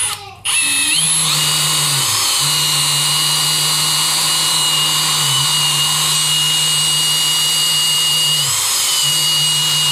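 Brushless cordless drill spinning a 3-inch wire brush inside a Superduty Dana 60 axle tube, scouring out rust, the drill working under heavy load. It starts about half a second in and runs steadily, its pitch sagging briefly a few times as the brush loads up.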